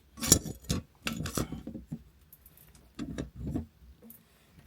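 Short clinks and knocks of a tool working the toilet cistern's fixing bolts and nuts while they are checked for tightness, in three brief clusters.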